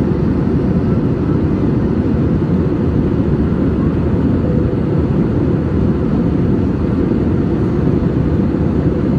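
Jet engines and rushing air heard inside the cabin of an AirAsia Airbus A320 climbing after takeoff: a loud, deep, steady noise.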